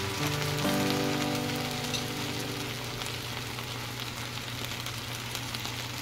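Chopped okra and onion sizzling in a frying pan just after half a cup of water has gone in: a steady crackling hiss. Soft background music with held notes fades out over the first two or three seconds.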